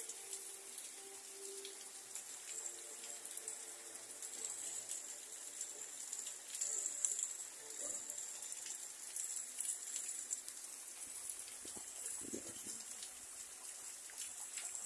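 Rain falling steadily: a constant high hiss with scattered drip ticks.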